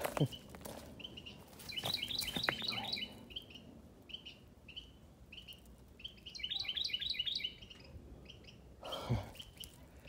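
A small bird chirping. It gives a quick run of chirps about two seconds in and another near seven seconds, with single chirps about twice a second between them. A few sharp clicks sound near the start.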